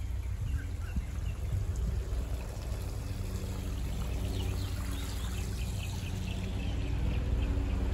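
A bird chirping in a quick run of short, high calls through the second half, over a steady low rumble.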